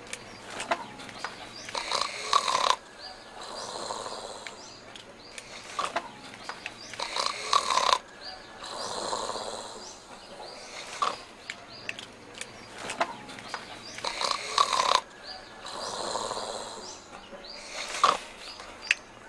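A man snoring in his sleep: four loud, rough snores, each followed by a softer, longer breath out.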